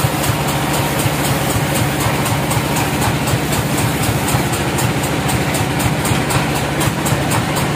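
Band sawmill machinery running steadily: a constant low engine hum with a fast, even pulse.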